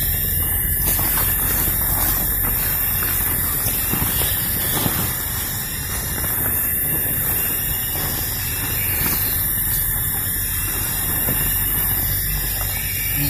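Steady rushing wind, with the plastic flysheet tarp rustling and crackling as it is handled and hung.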